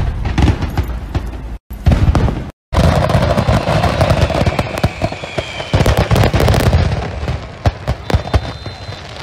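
A load of commercial fireworks accidentally going off at once: a rapid, continuous barrage of bangs and crackling shell bursts. The barrage breaks off twice early on and then runs on unbroken.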